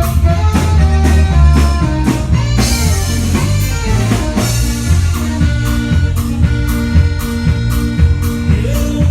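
Loud music with a drum kit keeping a steady beat over a bass line and held notes.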